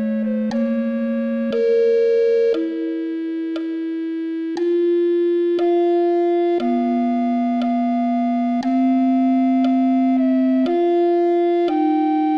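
Computer playback of the two lower parts of a slow Baroque trio-sonata movement, with the top line left out: two synthesized voices in sustained notes that change about every one to two seconds.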